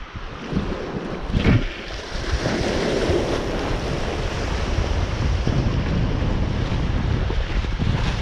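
Wind buffeting the microphone over a steady rush of water waves, with a brief knock about one and a half seconds in.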